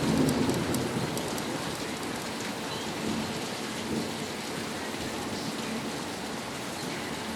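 Rain falling steadily on surfaces, with a low rumble of thunder fading away about a second in.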